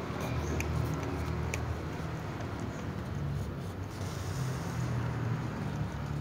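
Cats eating dry kibble, with a few sharp crunches in the first couple of seconds, over a steady low rumble.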